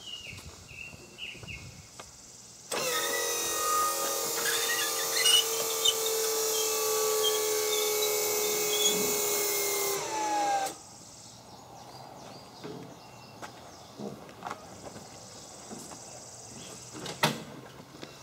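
Motor of a powered wheelchair-transfer seat lift running for about eight seconds, a steady whine that drops in pitch as it stops, moving the transfer seat across to the tractor's operator seat. Small clicks and knocks before and after it, with one sharp knock near the end.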